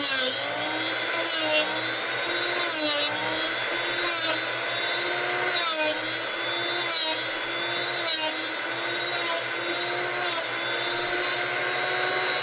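Drill Doctor bit sharpener running, its grinding wheel rasping on a broken drill bit in short bursts about every second and a half as the bit holder is turned through the sharpening port. The motor's hum dips a little with each grind.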